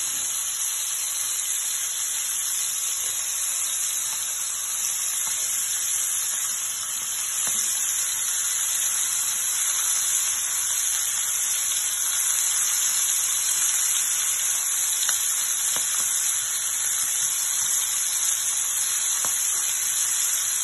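Beef steaks frying in butter in a pan: a steady sizzle with a few faint pops.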